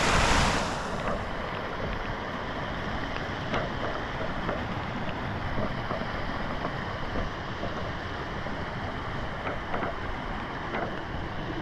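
Steady rushing outdoor noise with a low rumble. It is louder for about the first second, then settles, with scattered faint ticks and snaps.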